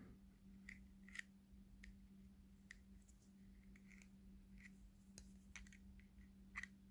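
Faint, irregular small metallic clicks and ticks, about eight in seven seconds: tweezers working against a Zippo lighter's metal insert while the cotton packing and wick are pushed back in.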